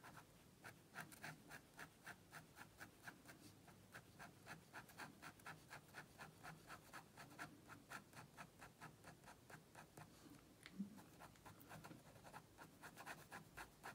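Fine-tip ink pen scratching on paper in quick short hatching strokes, about three to four a second, faint. There is one louder click about ten seconds in.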